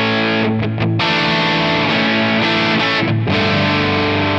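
Distorted electric guitar playing crunchy rhythm chords through a Quad Cortex loaded with a Neural DSP capture of a Marshall Super Bass 100 on its warm crunch setting with cab. The chords ring out and change twice, with brief breaks about half a second in and about three seconds in.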